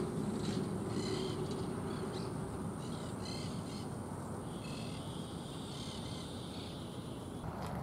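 Bird calls: a run of short repeated calls, then a few longer drawn-out calls about five to six seconds in, over a steady low background rumble.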